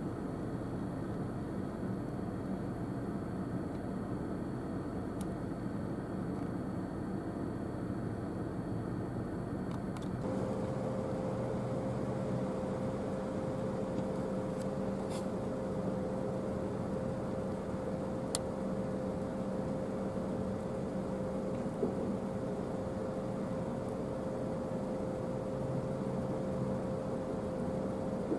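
Steady mechanical hum with a faint high whine; about ten seconds in it changes abruptly, the whine stopping and a clear steady mid-pitched tone taking over, with a few faint clicks later.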